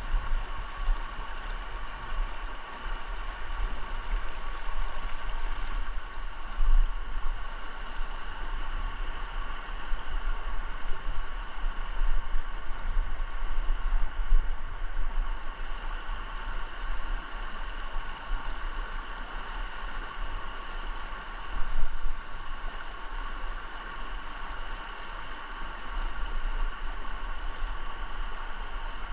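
Fast river water rushing over rocks in a steady, even hiss, with a low rumble underneath that rises and falls.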